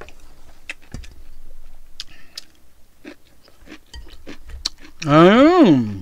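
A person chewing a full mouthful of noodles and beef, with scattered small wet clicks. Near the end comes a loud hummed 'mmm', rising and then falling in pitch over about a second.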